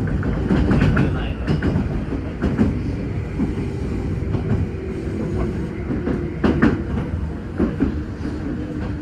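Passenger train running along the track, its wheels clacking over rail joints now and then, with a quick double clack about six and a half seconds in, over a steady low rumble and hum.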